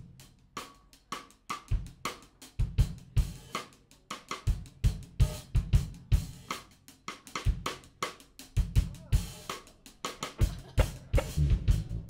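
Drum kit playing an opening groove on its own: kick drum, snare, hi-hat and cymbals in a steady funk rhythm. Sustained low bass notes join near the end.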